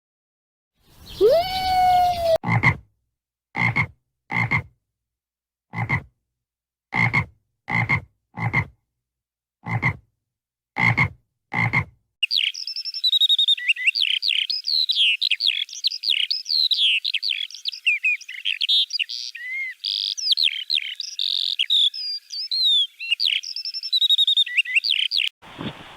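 Animal calls in separate short recordings: one rising call, then about eight short croaks roughly a second apart, then a dense chorus of many overlapping high chirps.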